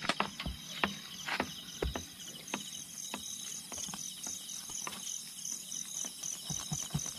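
Irregular clicks and taps of a knife cutting into a milkfish on a wooden board as it is cleaned. Crickets chirp steadily behind, in an even rapid pulse.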